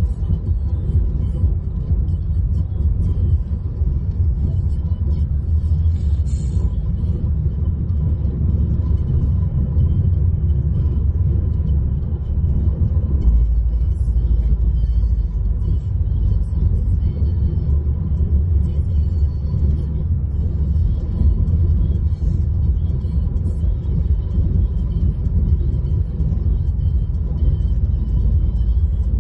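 Steady low road rumble inside a car's cabin, running without a break.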